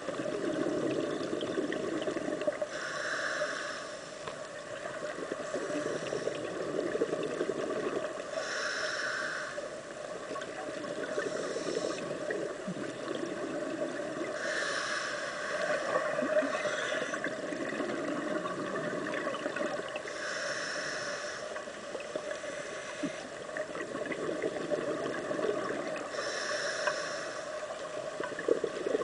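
Scuba diver breathing through a regulator underwater: a hissing inhalation about every five to six seconds, with bubbly exhalations rumbling in between.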